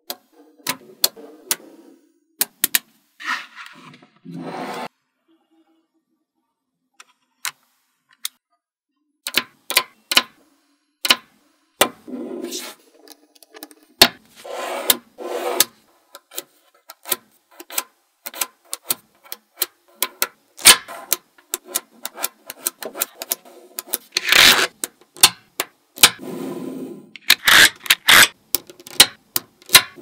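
Small neodymium magnetic balls clicking sharply as they snap onto one another, with scraping and rattling as clumps of them are pushed and slid across a hard tabletop. After about five seconds there are a few seconds of near silence, then the clicking resumes thick and fast.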